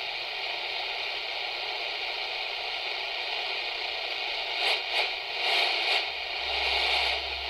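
Steady radio static hiss from a small radio receiver picking up interference from a walkie-talkie transmitting right beside it. The hiss swells louder several times in the second half, and a low hum joins near the end.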